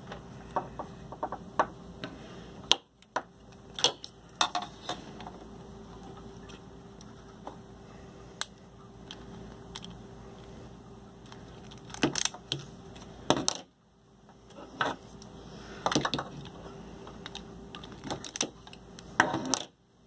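Automatic wire strippers clicking and snapping as they clamp and strip silicone-insulated wire: irregular sharp clicks, some in quick clusters, with gaps of several seconds between them.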